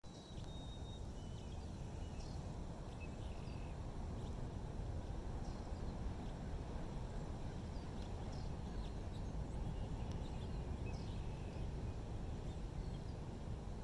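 Outdoor ambience: a steady low rumble with faint, short bird calls scattered throughout.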